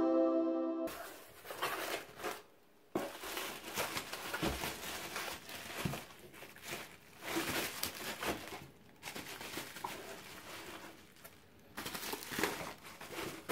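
Plastic bubble wrap crinkling and rustling as a parcel is unpacked by hand, in uneven bursts with short pauses. A chiming intro jingle fades out in the first second.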